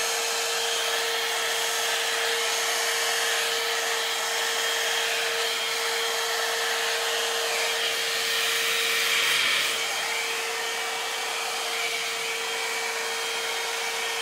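Head Kandy Commitment Issues blow-dry brush running: a steady rush of blown air with a constant motor whine.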